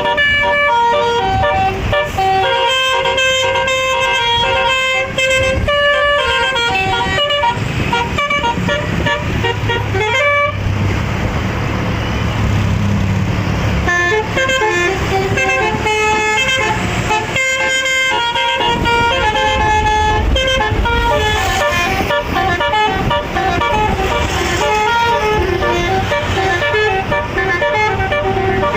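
Six-trumpet bus telolet horn playing quick melodic runs of short notes, several trumpets often sounding together, over and over. About halfway through there is a few-second stretch of rushing noise and a rising low rumble from the bus's engine.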